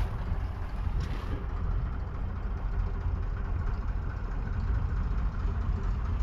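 Ford 4610 II tractor's 3.3-litre three-cylinder diesel engine running steadily with a low rumble.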